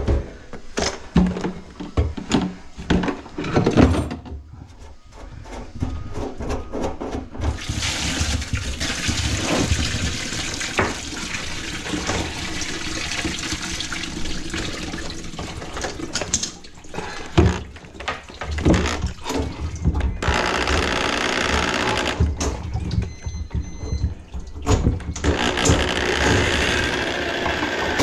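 Knocks and clatter for the first few seconds, then water running steadily into a kitchen sink, in two long stretches broken by a few knocks.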